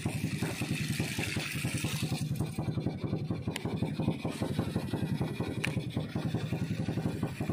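Small boat engine running steadily with a rapid, even low putter. Two faint ticks sound in the middle.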